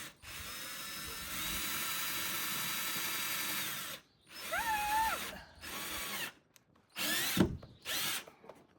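Power drill driving a fastener into wood: the motor runs steadily for about four seconds, speeding up about a second in, then comes in a few shorter trigger pulls that rise and fall in pitch.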